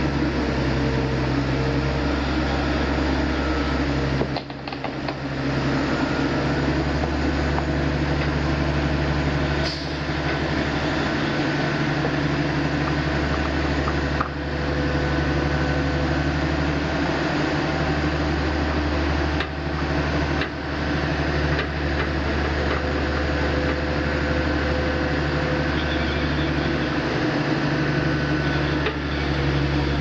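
Diesel power pack of a self-propelled modular transporter running steadily under load, a continuous low drone with a constant hum, as the transporter creeps along.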